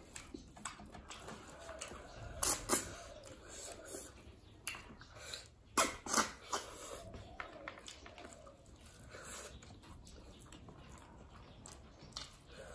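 Close-up eating sounds of river snails cooked with bamboo shoot: wet slurps and chewing, with a few short sharp slurps, the loudest about six seconds in.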